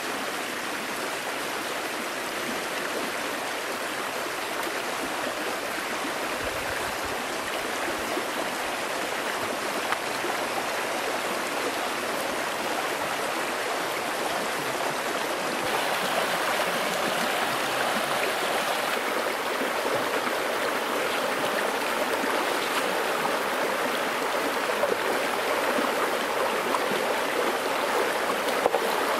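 Shallow, fast mountain river rushing over rocks: a steady rush of flowing water that grows somewhat louder in the second half.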